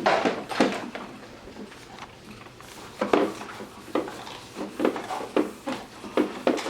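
Short knocks and clatter, about eight in all, bunched after a quieter stretch in the middle, as of hard objects being handled and set down.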